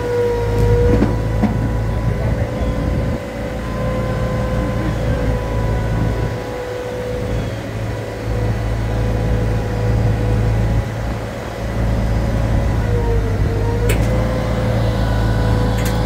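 Propane Hoist forklift engine running steadily under the weight of a large lathe, with a steady whine over the low engine note. There are two sharp clanks near the end.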